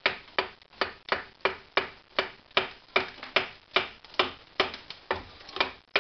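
Repeated hammer blows on a MacPherson strut, about two and a half a second at an even pace, each a sharp knock with a short metallic ring: knocking free a bump stop and shield that are rusted to the strut's piston shaft.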